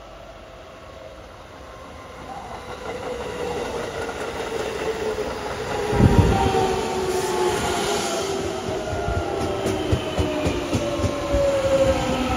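JR West 207 series electric train pulling in and passing close by. It grows louder as it approaches, with a heavy thump about six seconds in as the front cars reach the microphone. Its motor whine then falls in pitch as it slows, while the wheels click rhythmically over the rail joints.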